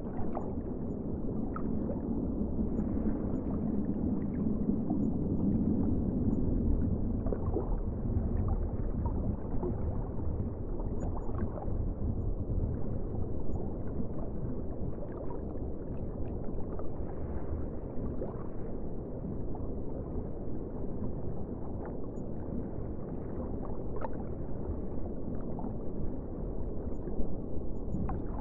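Underwater ocean ambience: a steady, muffled low rumble of moving water, swelling briefly a few seconds in, with faint scattered clicks.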